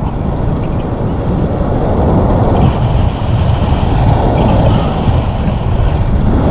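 Wind rushing over the microphone of a camera held out during a tandem paraglider flight: a loud, steady buffeting rumble.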